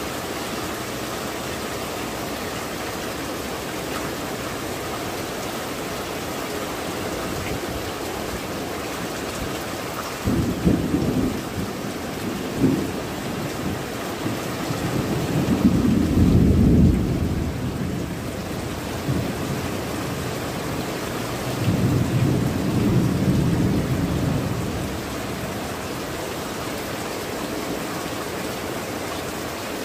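Steady heavy rain falling on clay tile roofs and trees, with low rolls of thunder: a first rumble about a third of the way in, the loudest just past the middle, and a third a few seconds later.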